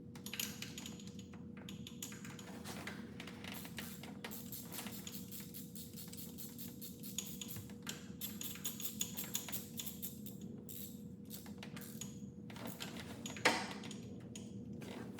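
Hand tools clicking and clinking as bolts are run in on a Holley Hi-Ram intake manifold, with one sharper metallic knock near the end.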